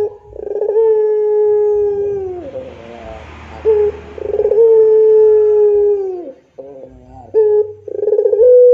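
White Barbary dove (puter pelung) cooing: three long drawn-out coos, each held about two seconds and dropping in pitch at the end, with short coo notes between them.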